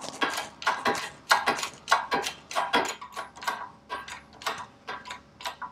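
Hand-pumped hydraulic shop press being worked, its pump clicking in a steady rhythm of about three to four clicks a second as the ram presses a new wheel hub bearing into the steering knuckle.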